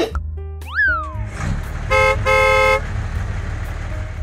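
Dubbed-in tractor sound effects: a steady low engine rumble, a quick rising-and-falling whistle glide about half a second in, then two horn beeps around two seconds in, the second one longer.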